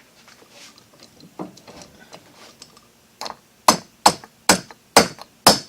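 Light clatter of metal lock parts being handled, then five sharp knocks about half a second apart as a tool strikes the knob lock's metal housing, likely seating the cam inside it.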